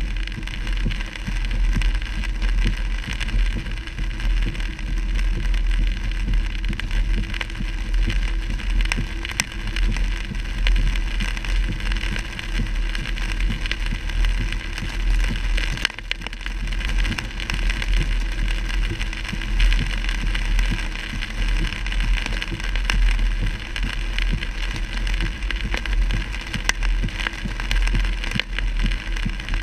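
Car cabin noise while driving in heavy rain: a steady low road and engine rumble with rain spattering on the windshield and body.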